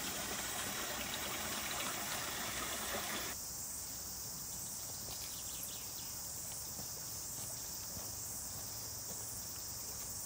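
Water splashing down a small cascade into a stream pool for about the first three seconds, cutting off suddenly, under a steady high shrill of insects that carries on after it.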